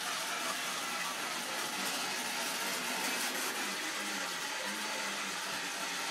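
Toy steam train set giving off a steady hissing steam sound effect.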